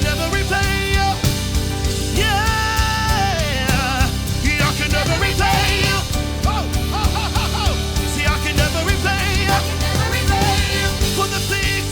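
Live gospel worship band music: a lead melodic line with held, bending notes and vibrato over steady bass and drums.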